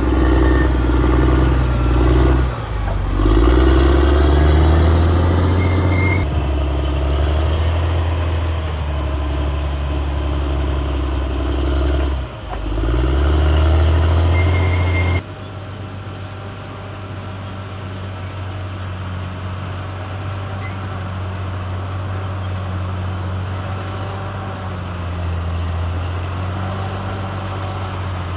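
Caterpillar D6R bulldozer's diesel engine running hard under load, dipping and recovering twice. About halfway in it drops abruptly to a quieter, steady run.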